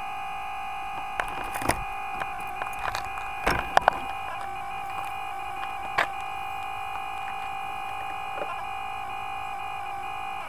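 Steady electronic whine at several fixed pitches from a small electric RC airplane's onboard electronics, its motor not yet running. A few sharp clicks and knocks come from handling, the loudest a pair about four seconds in.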